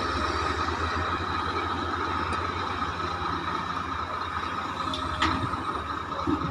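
Heavy diesel excavator engine running steadily, a low drone with a steady high whine over it. A single sharp clank comes about five seconds in.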